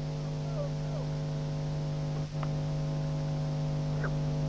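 Steady electrical mains hum from the tape transfer. A few faint, short squeaky glides rise and fall over it: a couple near the start, one in the middle and one near the end.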